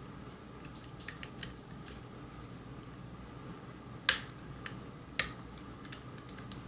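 Small metallic clicks and taps of a lock pick and tension wrench working the pins of a five-pin mortise cylinder lock, with two sharper, louder clicks about four and five seconds in.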